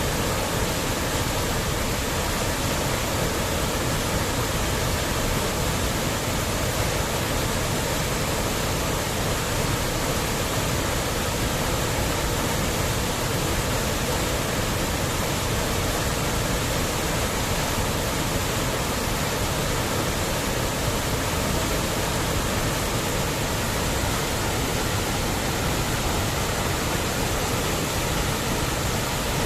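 Waterfall: falling water making a steady, even noise that does not change.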